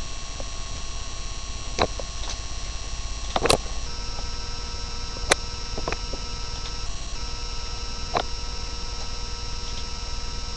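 Steady electrical hum with several high, steady whining tones over it, broken by a handful of short sharp clicks; the loudest click comes about three and a half seconds in.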